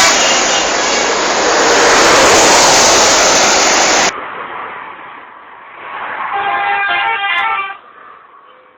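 An Indonesian intercity bus sounding its multi-tone telolet horn. A loud blast of horn and bus noise cuts off abruptly about four seconds in. After a quieter stretch, a shorter, fainter burst of the telolet horn tune plays about two-thirds of the way through.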